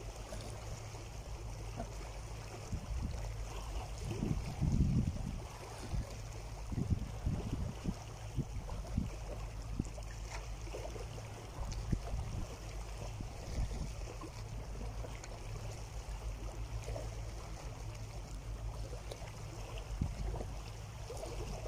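Small sea waves sloshing and lapping against shore rocks, an irregular run of splashes with a louder surge about five seconds in.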